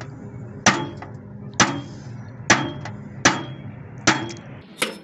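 Hammer blows on a sheet-iron oil tin, cutting through its side: six sharp metallic strikes at about one a second, each with a short ring.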